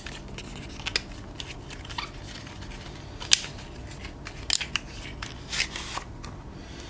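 Small cardboard box being opened by hand, its flap folded back and the insert slid out: scattered crisp clicks and rustles of card, the sharpest about three seconds in.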